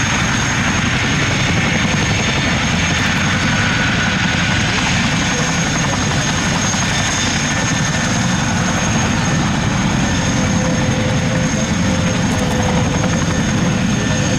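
Airbus A400M Atlas's four Europrop TP400 turboprops and eight-bladed propellers running loud and steady as the aircraft rolls out after landing, with a thin high whine over the propeller noise.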